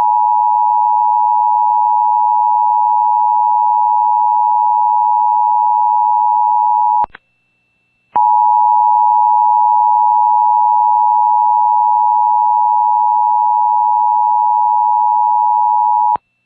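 Emergency Alert System two-tone attention signal, two steady tones sounding together. It cuts out for about a second around the middle with a click at each edge, then resumes and stops with a click near the end. It signals that an emergency alert, here a tornado warning, is about to be read.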